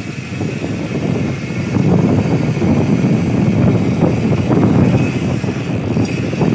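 Wind buffeting the microphone on a fast downhill ride, a loud rumbling rush with no let-up.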